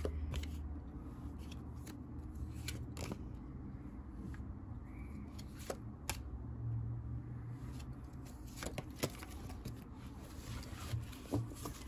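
Tarot cards being shuffled and handled: scattered soft clicks and snaps of card stock, over a low steady hum.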